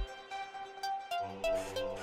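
Electronic background music: short synth notes, with a low bass line coming in about a second in.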